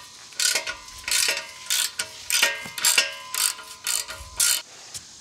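Ratchet turning the half-inch bolt of an exhaust tip clamp to loosen it: about eight strokes in a row, the pawl clicking on each, roughly one every half second or a little more.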